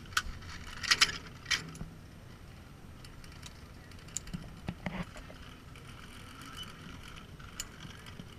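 Metal zip-line harness hardware clinking and jangling in a few sharp, irregular clicks, loudest about a second in, over a low steady rumble of wind and the platform.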